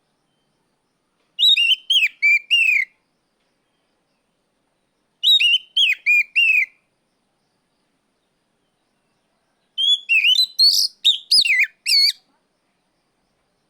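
Oriental magpie-robin (kacer) giving loud whistled calls in three bouts a few seconds apart, each a rapid run of short, sharply bending notes; the last bout is longer and busier. These are the loud 'ngeplong' calls a male kacer uses to challenge a rival.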